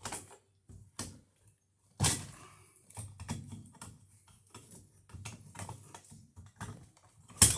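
Irregular clicks and knocks of hand tools and hardware being handled while working on the wall receptacle's wiring, with two louder sharp knocks, one about two seconds in and one near the end.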